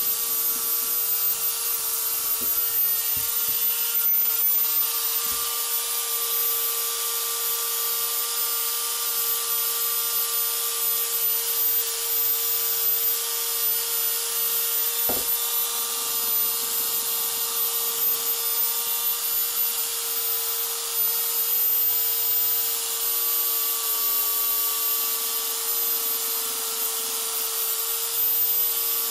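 Chicago Electric finger sander (a small electric belt file) running steadily. Its motor gives a constant whine over the hiss of the abrasive belt sanding carved wood.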